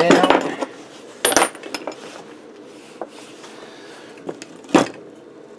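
Metal tools and parts clinking as they are handled and set down on a workbench: a sharp metallic clink just over a second in and another near the end, with lighter ticks between.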